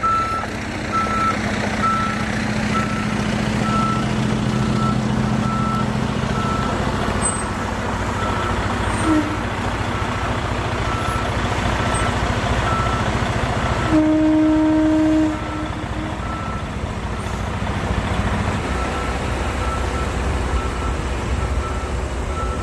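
Dump truck reversing: its backup alarm beeps steadily about once a second over the diesel engine running. About two-thirds of the way in a louder, lower tone sounds for a second or so.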